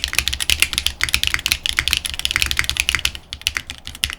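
QK101 full-size custom mechanical keyboard being typed on quickly for a sound test: a continuous run of keystroke clicks and clacks, several a second.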